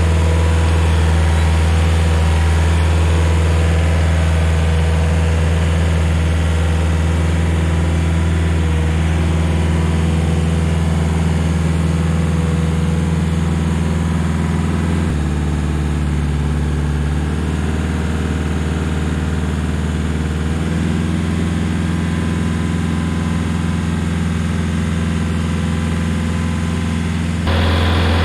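Rayco RG50 stump grinder's engine running steadily. Its note drops about halfway through, shifts again a few seconds later, and steps up in level near the end.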